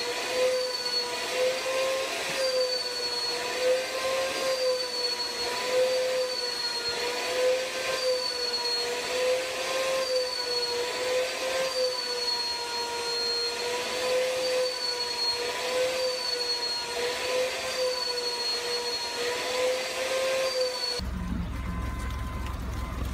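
Vacuum cleaner running with its hose nozzle drawn over a cat's fur: a steady motor whine whose pitch wavers slightly up and down about once a second. Near the end it cuts to the low, steady rumble of a car's engine.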